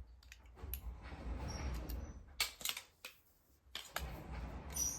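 PEX tubing cutters trimming 1/2-inch plastic PEX pipe: a few sharp snipping clicks over low rumbling handling noise.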